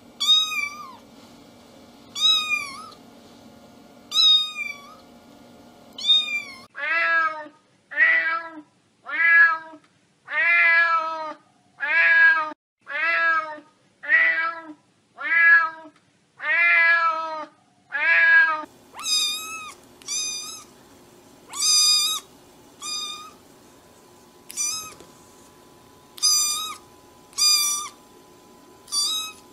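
Cats meowing in three runs: first four high, thin kitten mews about two seconds apart, then a lower-pitched adult cat meowing about once a second for some twelve seconds, then high kitten mews again about once a second.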